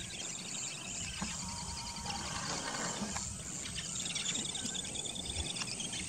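Wetland ambience: birds chirping in quick repeated notes over a steady high trill of insects.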